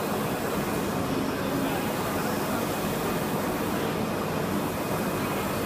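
3.2 m wide-format roll UV printer running, its printhead carriage sweeping back and forth across the roll, under a steady din with indistinct voices.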